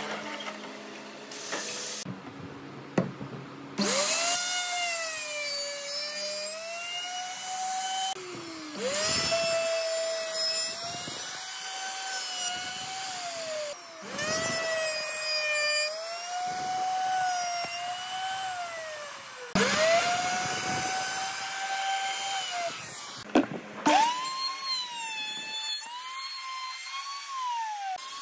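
Handheld Dongcheng electric router running at high speed, its bit cutting along the edge of a curved pine workpiece in several passes. Its high whine dips in pitch each time the bit bites into the wood and recovers as the cut eases. In the first few seconds there is a lower mixed machine sound with a few sharp knocks.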